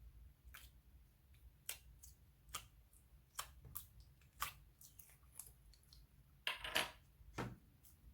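Slime being mixed and worked, giving off irregular sharp clicks and pops, with a louder run of them near the end.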